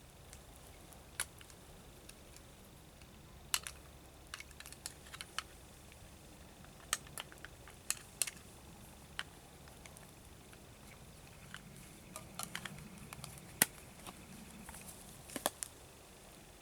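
Freshly lit campfire tinder and kindling crackling, with sharp snaps and pops at irregular intervals, some much louder than others.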